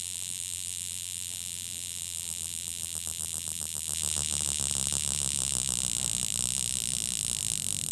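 Mechanical alarm of a 1965 Jaeger-LeCoultre Memovox wristwatch ringing: a small hammer inside strikes the case in a rapid, steady buzzing rattle. It gets a little louder about halfway through.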